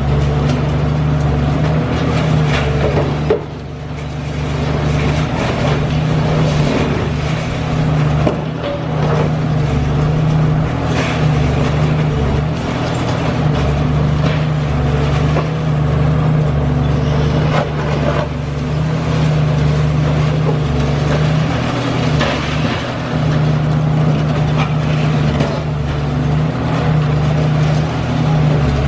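Large diesel excavator engine running with a steady low drone, with scattered knocks and clatter of a building being torn down by a high-reach demolition machine.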